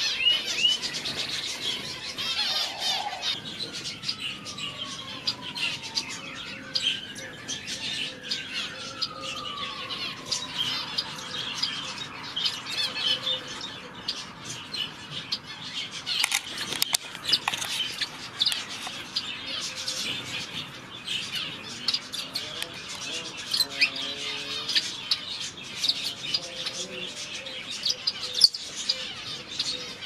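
A mixed aviary of zebra finches and Bourke's parakeets, many small birds chirping and calling continuously in quick, overlapping high notes.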